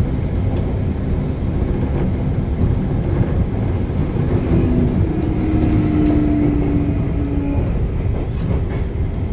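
Running noise inside a Sotetsu 9000 series electric train: a steady low rumble of wheels on rail. A humming tone joins for a few seconds in the middle.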